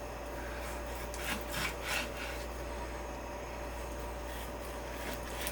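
Knife cutting raw chicken thighs into bite-sized pieces on a cutting board: a few soft slicing strokes against the board, over a faint steady hum.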